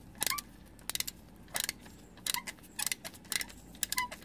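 Screwdriver and bit holder turning a screw extractor in a broken oil pan bolt, making short bursts of sharp metallic clicks about every half second as the stud is worked out of the engine block.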